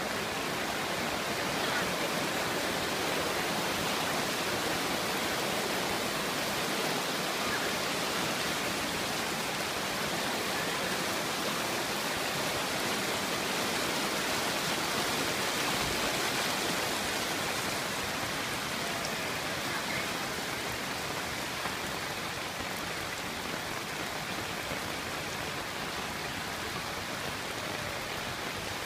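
Steady, even hiss of water, rain or floodwater, with no distinct events.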